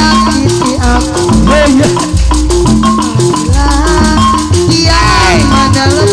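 Live jaipongan music from a Sundanese gamelan ensemble, played loud, with heavy drum beats recurring through it and rapid clicking percussion over sustained pitched notes.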